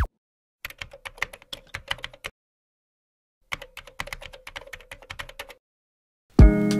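Keyboard typing sound effect: two runs of quick key clicks, each a second and a half to two seconds long, with a short silent gap between them. Music starts near the end.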